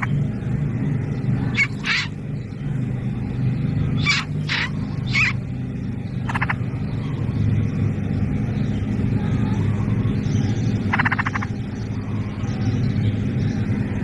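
A steady low hum like a nearby engine running, with a handful of short raspy chirps, plausibly from bulbul nestlings calling. The chirps come several in the first six seconds and once more after a long gap.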